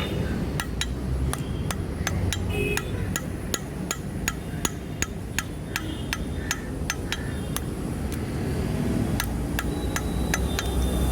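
Blacksmith's hand hammer striking steel on an anvil in a steady run of blows, about three a second, some leaving a short metallic ring. A low steady rumble runs underneath.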